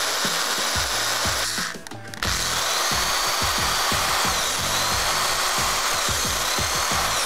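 Hand-held electric drill running steadily as its bit drills through the thin metal frame of a heat gun's heating element. It stops for about half a second near two seconds in, then runs again. Background music with a steady beat plays underneath.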